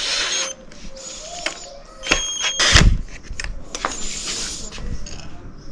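A power drill running, then stopping about half a second in. It is followed by scattered clicks and light metallic clinks of tools and mounting hardware being handled, with a heavier knock about three seconds in.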